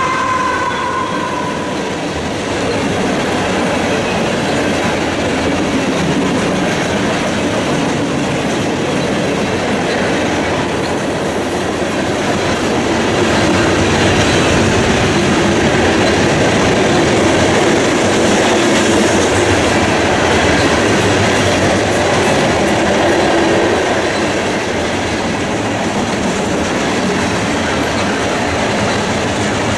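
Union Pacific freight train of covered hopper cars rolling past at speed: a steady rumble and rail noise of the passing wagons, somewhat louder between about 13 and 24 seconds in.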